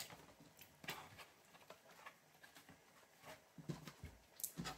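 Faint, irregular taps and knocks of a knife and raw potato slices on a cutting surface as the potatoes are sliced and handled, about seven over a few seconds.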